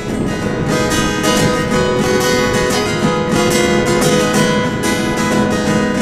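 Acoustic guitar strummed steadily, an instrumental passage of the song with no singing.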